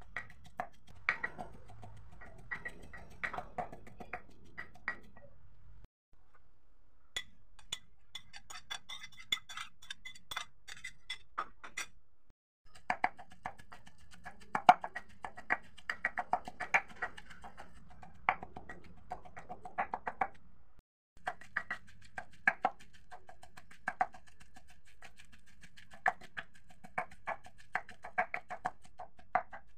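Pestle pounding in a mortar: repeated sharp knocks with a ringing tone, in several runs broken by short gaps. Roasted chillies, shallots and garlic are being ground, then frog meat is pounded in.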